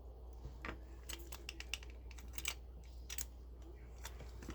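Lock pick and tension wrench working the pin tumblers of a Master Lock 410 lockout padlock: faint, irregular small metal clicks as the spool pins are set, with one sharper, much louder click right at the end.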